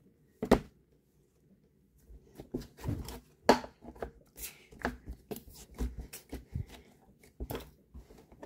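Cloud slime being squished and stretched by hand, making irregular sticky crackles and pops. There is one sharp pop about half a second in, then a dense run of crackling from about two seconds in.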